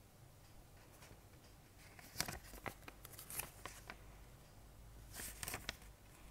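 Paper rustling and crinkling in two short spells, about two seconds in and again about five seconds in, as a sheet of instructions is handled.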